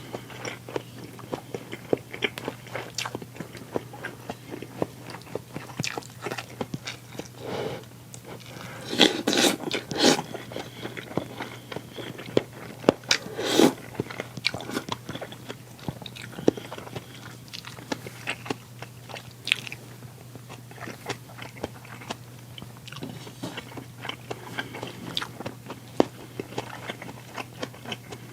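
A person eating close to the microphone: steady chewing with many small wet mouth clicks, and louder crunching bites twice, about nine and thirteen seconds in. A faint steady electrical hum runs underneath.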